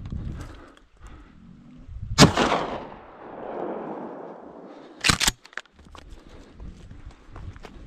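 A single shotgun shot about two seconds in, its report echoing and dying away over about a second. About three seconds later come two more sharp cracks in quick succession.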